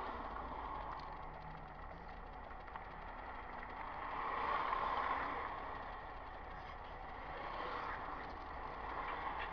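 Road noise of a car driving on a wet, slushy highway, heard from inside the cabin. It is a steady rush that swells briefly about halfway through.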